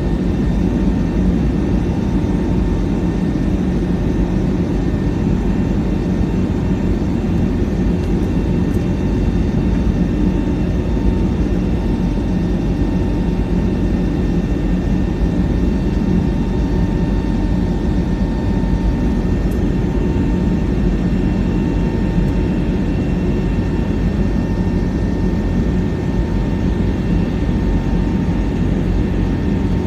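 Steady cabin noise inside an airliner climbing after takeoff: a low, even rush of engines and airflow with a faint steady whine on top.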